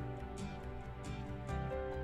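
Instrumental background music with held, changing notes.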